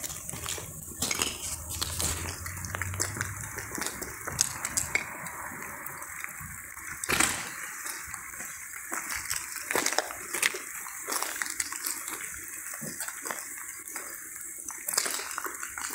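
Footsteps with scattered clicks and clinks and camera handling rustle, over a steady hiss.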